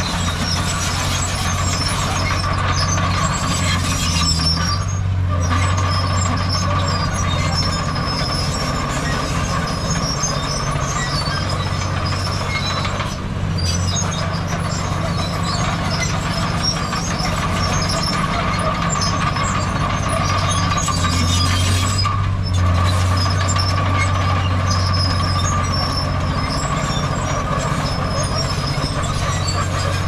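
Heavy diesel earthmoving machinery running steadily, a deep engine drone with a steady higher whine over it.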